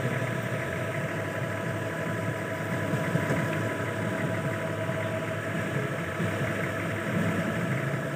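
Nissan forklift engine idling steadily.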